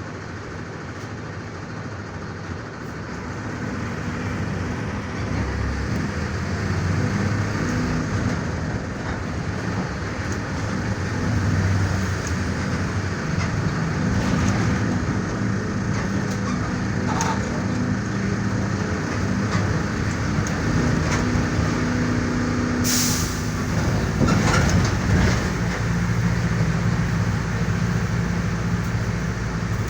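Mercedes-Benz OF-1418 bus's front-mounted diesel engine pulling and running under load, its pitch rising and dropping several times as the bus works through the gears. A short, sharp air hiss from the pneumatic brake system comes about two-thirds of the way through.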